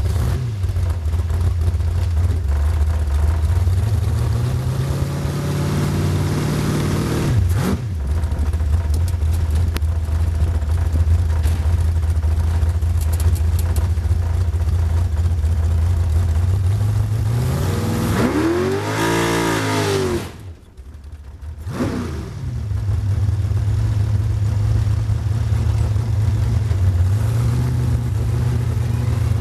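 Two-seat dragster's engine running at idle, heard from the cockpit. It revs up slowly and drops back abruptly about seven seconds in, then revs up and back down again near twenty seconds. Just after that the engine sound briefly drops away before the idle returns.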